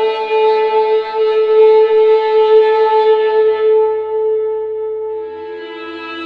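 Viola sound effect playing one long held note rich in overtones, sliding down to a lower held note about five seconds in.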